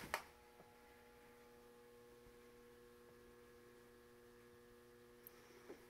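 Near silence: a faint, steady electrical hum of several held tones, with a sharp click just after the start and a couple of faint ticks near the end.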